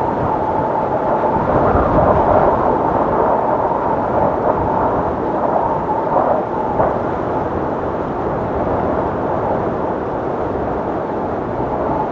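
Strong wind rushing steadily, with a thin whistling tone over it through the first half that fades away.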